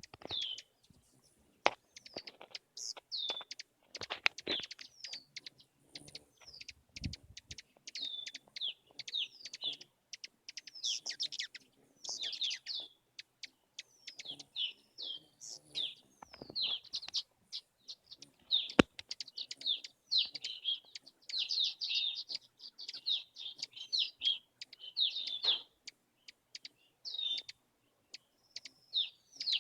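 Hummingbirds chittering: many short, high chip notes that slide downward, in quick runs throughout, densest in the second half.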